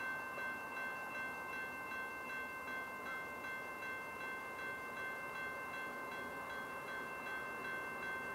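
Railroad crossing warning bell ringing steadily in quick, evenly repeated strokes, signalling that a train is approaching and the crossing gates are down.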